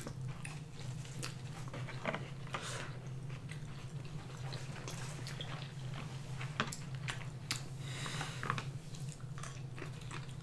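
Close-miked eating sounds: chewing, with frequent small mouth smacks and clicks, as two people eat sushi rolls and spicy noodles. A steady low hum runs underneath.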